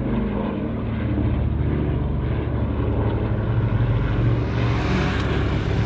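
Steady low engine rumble of a running vehicle, which cuts off suddenly at the end.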